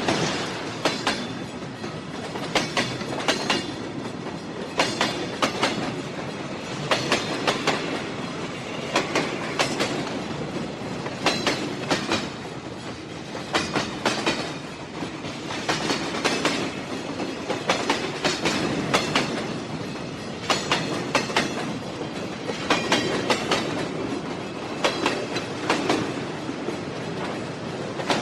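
Train wheels running over rail joints: clickety-clack, with clusters of sharp clicks about every two seconds over a steady rolling rumble.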